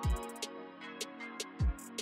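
Background music: an electronic beat with hi-hat ticks and two deep bass hits that drop in pitch, about a second and a half apart.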